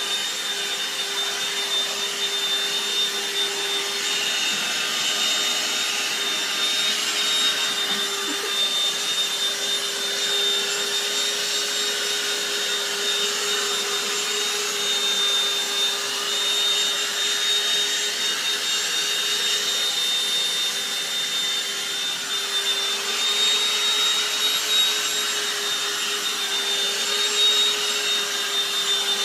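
DustBuster handheld vacuum running steadily, a high motor whine over a rush of air, its nozzle drawn over a cat's fur.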